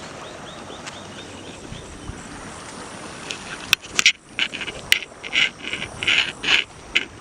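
Steady outdoor background hiss, then from about halfway a quick, irregular run of loud, short, high-pitched calls with sharp clicks among them.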